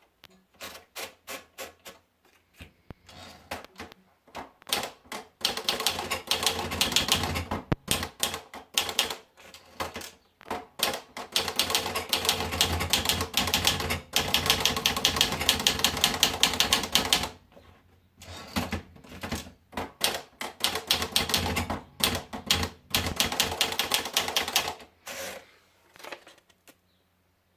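Manual typewriter being typed on: rapid runs of sharp keystroke clacks in bursts, with brief pauses between runs, stopping about a second before the end.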